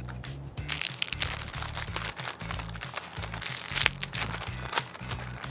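A plastic snack packet crinkling and being torn open by hand, a dense run of sharp crackles starting about a second in. Background music plays underneath.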